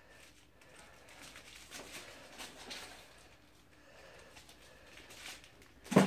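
Cardboard heater box being handled and opened: faint rustling and light scraping of the cardboard, with a sharp knock near the end.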